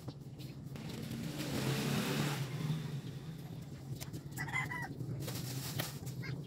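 Low engine hum of a passing motor vehicle, swelling about two seconds in. A chicken clucks briefly about four and a half seconds in, and a few sharp clicks come from plastic wiring connectors being pressed onto a motorcycle fuel pump.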